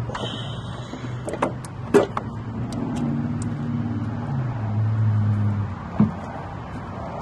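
Clicks and knocks of a vacuum brake booster being worked into place against the firewall, the loudest knock about two seconds in and another about six seconds in, with a brief high squeal near the start. A low vehicle engine hum swells from about three seconds in until nearly six seconds.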